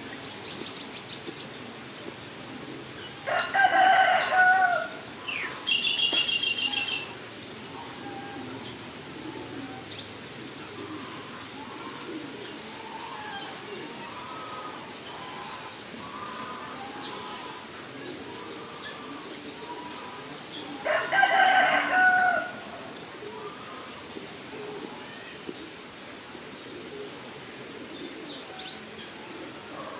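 A rooster crowing twice, about three seconds in and again about twenty-one seconds in, each crow lasting about a second and a half, with smaller birds chirping in between.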